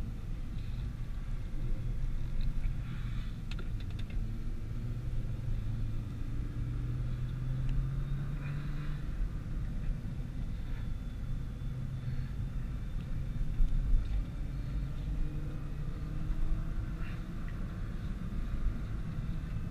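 Nissan GT-R on the move: engine running under a steady low road rumble, its note rising and easing off gently as the car drives.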